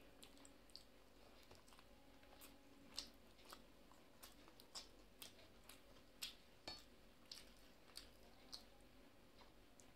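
Faint eating sounds: fingers mixing rice on a steel plate, with soft mouth clicks and squishes coming irregularly.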